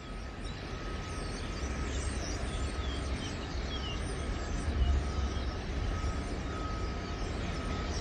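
A large flock of small birds perched along a tower crane's boom, calling with many short overlapping chirps, over a steady low rumble.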